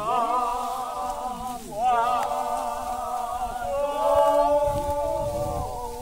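Several voices singing together in a chant of long, wavering held notes, with new phrases starting about two and about four seconds in.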